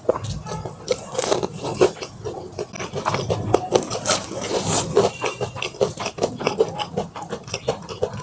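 Chewing and biting crispy Korean fried chicken, the coating crunching in a quick, irregular run of crackles and clicks.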